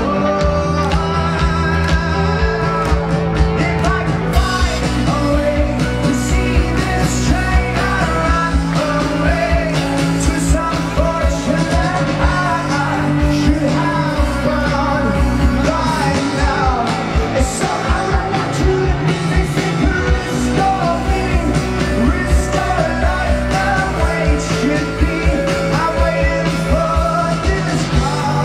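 Indie rock band playing live, with a steady drum beat, bass, guitars and a singer's voice.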